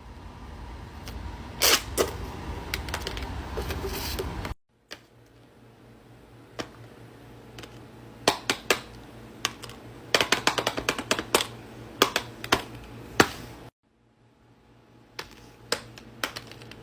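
Fidget toys being clicked and pressed: sharp, irregular clicks, sparse at first and then in quick runs, like typing.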